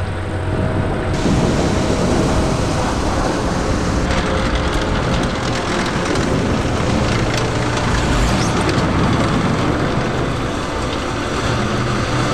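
Replica Panther tank driving: its engine runs loud and steady under the clatter of its tracks.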